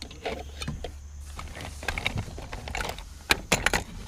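Small metal and plastic electronic parts (gauges, switches, meters) being handled and rummaged in a box, making irregular clicks, clacks and rattles, with the loudest few knocks about three and a half seconds in.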